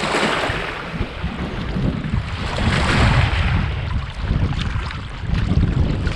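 Wind buffeting the microphone in a steady low rumble, over the splash and swish of a double-bladed paddle stroking a folding touring kayak through the water. The water noise swells twice, at the start and about three seconds in.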